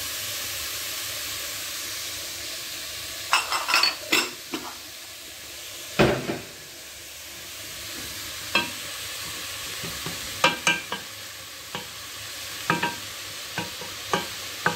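Diced red pepper and onion sizzling in oil in a stainless steel pot, with a steady hiss. From about three seconds in, a wooden spoon stirs the vegetables and knocks against the pot with irregular sharp knocks, the loudest about six seconds in.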